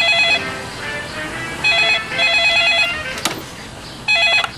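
Telephone ringing with an electronic trilling ring in the usual double-ring rhythm: a ring trails off at the start, a double ring follows about two seconds in, and another ring begins near the end. A single sharp click comes just after the three-second mark.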